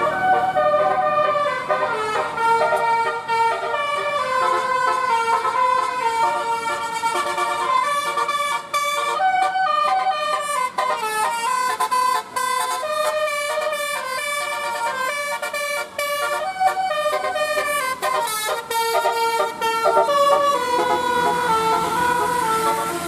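Telolet basuri multi-tone bus horn playing a tune: several horn notes sounding together, stepping from pitch to pitch with a few short breaks.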